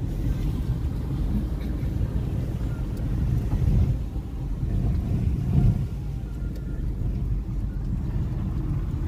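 Steady low noise of a car being driven, engine and tyres heard from inside the cabin, with a couple of slight swells midway.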